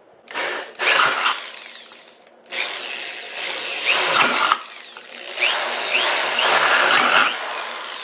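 Cordless drill boring holes through the thin steel bottom of a tuna can, running in several bursts of one to two seconds that stop and start as each hole is drilled.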